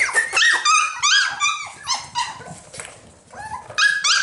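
A litter of cockapoo puppies yipping and barking, many short high-pitched yips in quick succession and overlapping. They ease off briefly about three seconds in, then pick up again.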